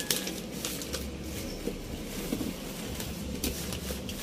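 Rustling and crinkling of paper wrapping and a cardboard box being handled, with scattered small clicks and crackles.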